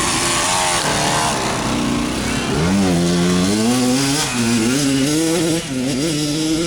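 Off-road motorcycle engines revving. A mixed engine noise gives way, about two and a half seconds in, to one engine whose pitch climbs and drops again and again as the throttle is worked.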